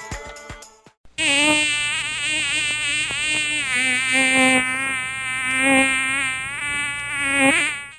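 Added buzzing sound effect like a fly or mosquito: one rich, buzzy tone whose pitch wavers up and down, starting about a second in and stopping just before the end. Before it, music fades out.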